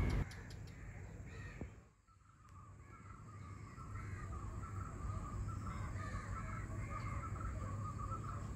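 Crows cawing again and again, with a denser chatter of birds building from about three seconds in over a low steady rumble.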